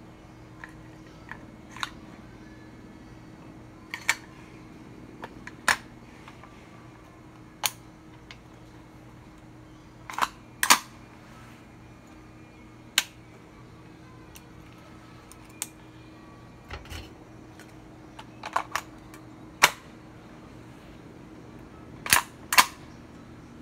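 T91 gas-blowback airsoft rifle's metal action being worked by hand. About a dozen sharp clicks and clacks come at irregular gaps, some in quick pairs.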